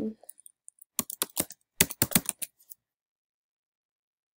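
Typing on a computer keyboard: a quick run of about a dozen keystrokes, starting about a second in and lasting under two seconds, as a word is typed.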